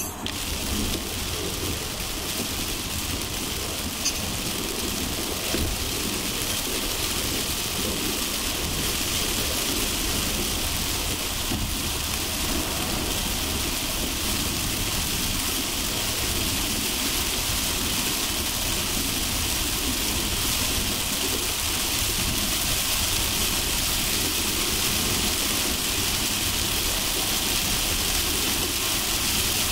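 Heavy rain hissing steadily over the low rumble of a car driving on a highway.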